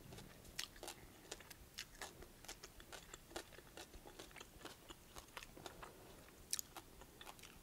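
Faint close-up chewing of a mouthful of stir-fried kohlrabi leaves: many small wet mouth clicks and soft crunches, with a sharper click near the end.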